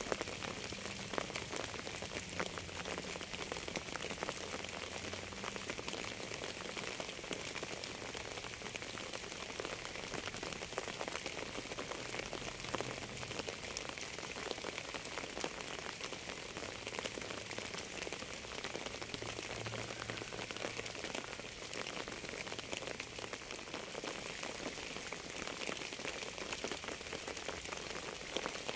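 Steady rain falling: a dense patter of raindrops over an even hiss.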